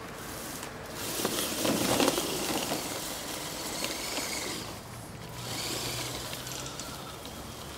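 Electric RC 6x6 pickup truck driving over dry leaf litter: a motor and gear whine with rustling and crunching of leaves. It is loudest about two seconds in and rises again around six seconds.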